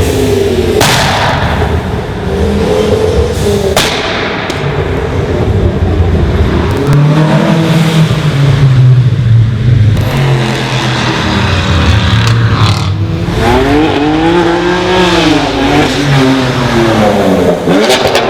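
Loud modified car engines accelerating and revving as they pass, the pitch rising and falling several times. A few sharp exhaust pops cut through.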